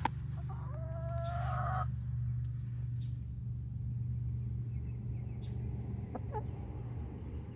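Young hen calling: one drawn-out, slightly rising call about half a second in, then a couple of short clucks about six seconds in. A sharp tap comes right at the start, over a steady low hum.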